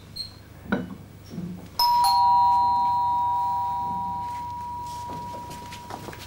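Two-note doorbell chime sounding once, a higher note and then a lower one, each ringing on and slowly fading over several seconds. A light knock comes about a second before it.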